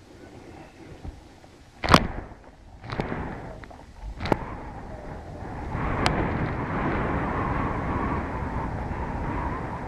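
Wind rushing over the microphone of a Flip MinoHD camcorder rigged to a flying stunt kite, with a few sharp knocks in the first half, the loudest about two seconds in. From about halfway in the wind noise runs steady and louder.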